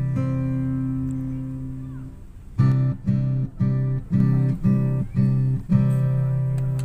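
Background music on acoustic guitar: a chord rings and fades for about two seconds, then about seven short strummed chords come roughly every half second before a last chord rings on.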